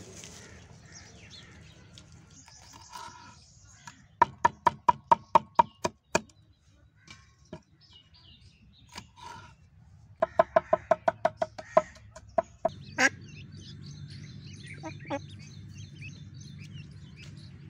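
A knife chopping on a wooden chopping board: two runs of quick chops, about five a second and each lasting about two seconds, then one harder knock. Faint bird calls from poultry follow near the end.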